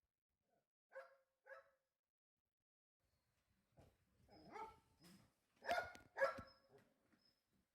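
Dog barking: two short barks about a second in, then a run of louder barks a few seconds later.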